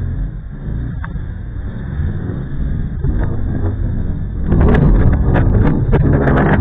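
Strong wind buffeting the nest-cam microphone, a loud, continuous low rumble. About two-thirds of the way in, a stronger gust makes the rumble louder, with a run of sharp crackling clicks.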